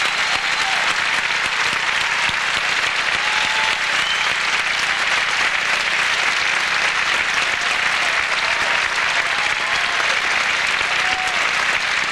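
Theatre audience applauding steadily, with a few scattered calls over the clapping.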